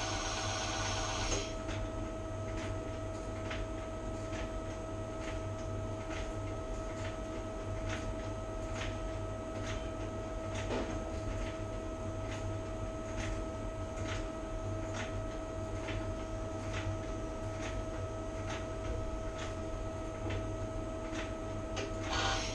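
Doosan Lynx LMS220 CNC lathe running: a steady machine hum with a faint regular tick a little more than once a second. A denser, higher whirring cuts off about a second and a half in, and a louder rush of mechanical noise starts near the end.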